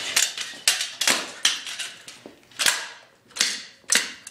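Broken Razor kick scooter clacking against a concrete floor: repeated sharp metal clacks, irregular at roughly two a second, as the frame, broken at its folding joint, flops and bangs down under the rider.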